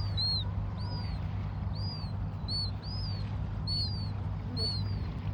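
Bird chirping: short, high, arched chirps repeated about twice a second, often in quick pairs, over a steady low rumble.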